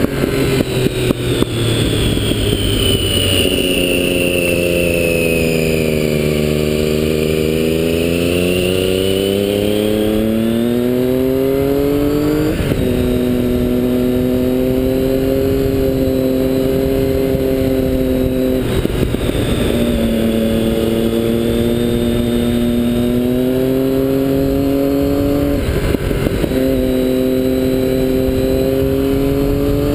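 Triumph Daytona 675's inline three-cylinder engine heard from the rider's seat. The revs sag for a few seconds, then climb steadily. Three upshifts follow, about twelve, nineteen and twenty-six seconds in; each is a short break before the engine pulls on at slightly lower revs.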